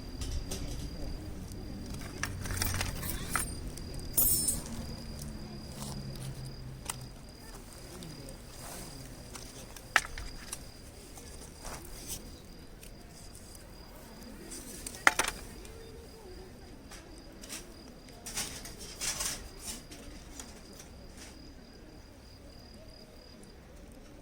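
Firewood burning in a fire pit, crackling with scattered sharp pops, two of them louder than the rest.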